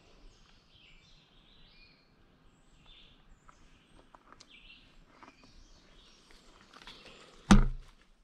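Faint outdoor ambience with scattered, distant bird chirps and a few soft clicks, then one sudden loud thump about seven and a half seconds in.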